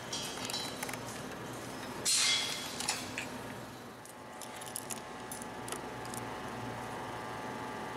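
Light metallic clinks and rattles of steel locking pliers being handled and clamped onto a stepper motor shaft, with a louder rustle about two seconds in and scattered small clicks later, over a faint steady hum.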